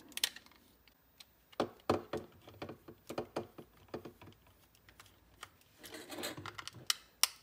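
Small precision screwdriver clicking and scraping on the tiny screws of a Soundcore Life Q20's plastic ear-cup plate, with scattered light plastic taps and one sharper click near the end.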